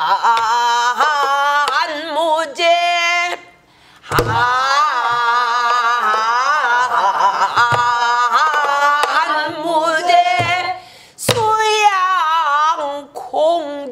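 A woman sings pansori in long, drawn-out tones with a wide, wavering vibrato, keeping time with a stick on a buk barrel drum. Two sharp drum strokes stand out, one about four seconds in and one about eleven seconds in.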